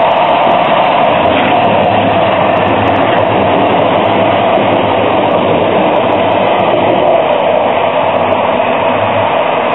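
Duewag articulated light-rail train running past on street track: a steady rolling noise from the wheels and running gear.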